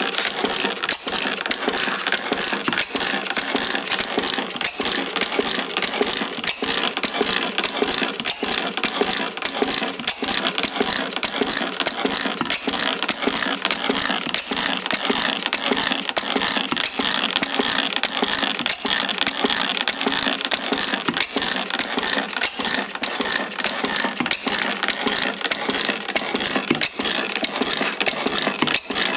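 Antique Schleicher, Schumm & Co. inverted Otto stationary gas engine running steadily, a fast, even mechanical clatter.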